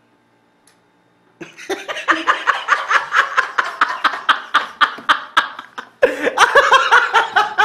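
A man laughing hard in quick repeated bursts, about three a second. It starts suddenly about a second and a half in and carries on to the end.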